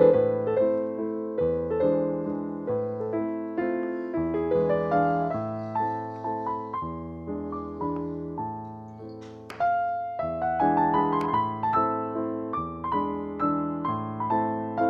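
Background music on solo piano, a gentle melody over chords with notes that strike and fade. A brief faint knock sounds about nine seconds in.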